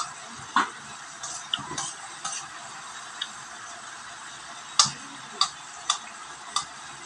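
A metal spoon clinking and scraping against a cooking pan as diced bottle gourd and chicken are stirred in broth. There are irregular sharp clinks, the loudest about five seconds in, over a steady hiss.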